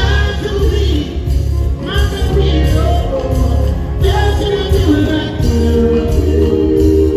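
Live band music with a voice singing drawn-out phrases over a steady heavy bass.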